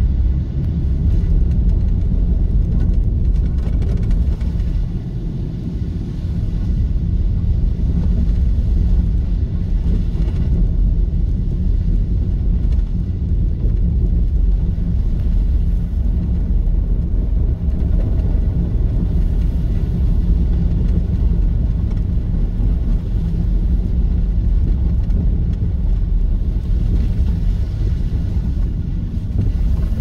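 Car driving along a road: a steady low rumble of engine and tyres.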